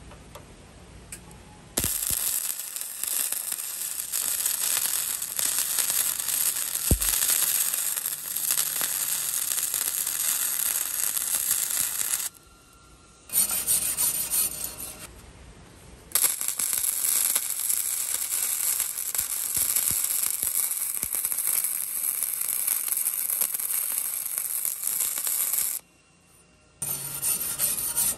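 Flux-core MIG welder laying a bead on 14-gauge plate steel with .035 flux-core wire: the arc crackles in long steady runs, starting about two seconds in and stopping briefly three times, near the middle and near the end.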